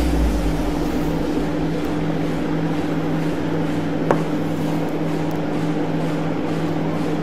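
A steady low hum over even background noise, with one short click about four seconds in.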